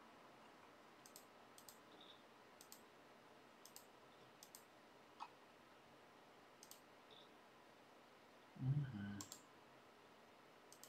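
Computer mouse clicking: a dozen or so short, sharp clicks spread over several seconds, several in close pairs. About three-quarters of the way through there is a brief, louder low sound.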